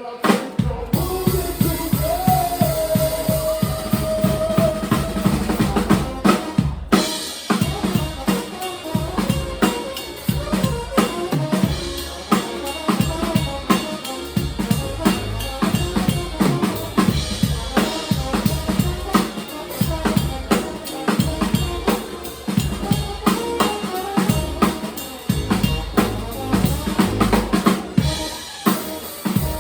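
Live band music driven by a drum kit, with kick drum, snare and rimshots in a steady, busy beat. A held pitched note sounds over the drums from about two to five seconds in, and the music briefly drops out at about seven seconds before the beat picks up again.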